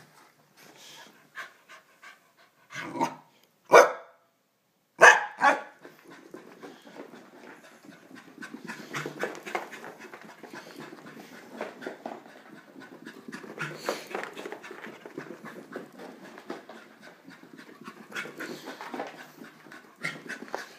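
A corgi panting hard from the exertion of a zoomies run, with many small clicks and scuffs throughout. A few loud knocks come a few seconds in, and the sound cuts out completely for about a second.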